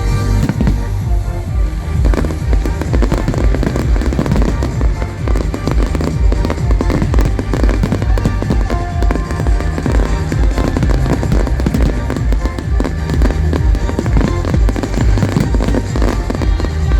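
Fireworks bursting in quick, irregular succession, a dense stream of bangs and crackles, over a loud music soundtrack with a heavy, steady bass.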